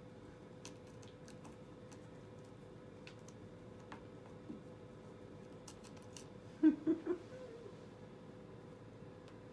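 Light clicks and scratches of a kitten batting a dangling plush toy mouse on a carpeted, sisal-wrapped cat tree. About two-thirds through come three quick, short voiced sounds, louder than anything else.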